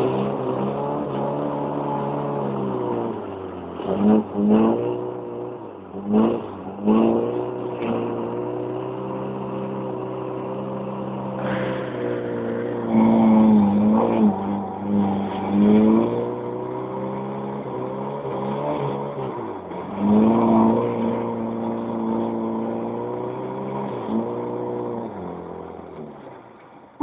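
Moskvich car engine driven hard, its revs rising and falling over and over with several loud flares of revs. Near the end the revs drop away and the sound grows quieter.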